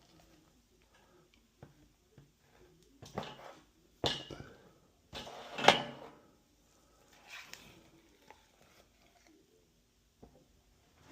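Handling noises from drywall work: a few separate clattering knocks and scrapes, the loudest about halfway through, in a small room.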